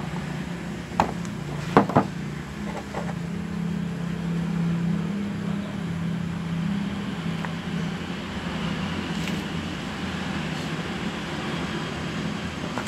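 A motor engine running steadily as a low hum, swelling a little in the middle, with a few sharp clicks about one and two seconds in.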